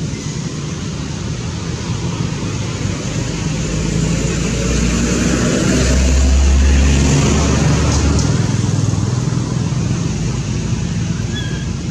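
A motor vehicle's engine running nearby over a steady low rumble. It swells to its loudest about six seconds in, then eases off.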